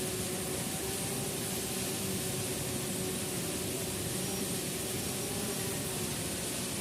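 Steady rush of a waterfall, with the faint, even hum of a small quadcopter drone's propellers running under it.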